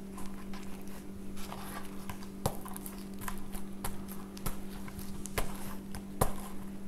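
Wooden mallet mashing roasted green plantains on a wooden board: irregular dull knocks, with a few sharper blows about a second apart in the second half.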